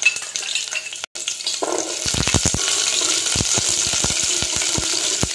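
Small onions (shallots) sizzling in hot groundnut oil with popped mustard seeds, with scattered sharp clicks. The sizzle breaks off for a moment about a second in, then comes back louder.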